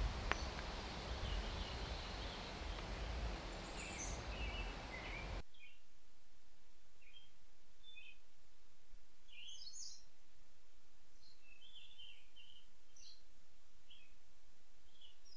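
Wild birds chirping in short, scattered calls. For the first five seconds or so a louder steady rushing noise lies under the calls, then cuts off abruptly, leaving the chirps over a quiet background.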